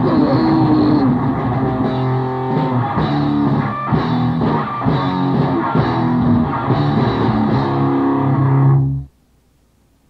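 Grindcore band playing distorted electric guitar and bass over drums, a raw 1980s demo-tape recording. The track stops abruptly about nine seconds in, leaving only faint background noise.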